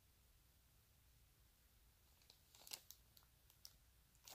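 Near silence, with a few faint clicks and crinkles of clear plastic sticker packaging being handled, about two and a half to three and a half seconds in.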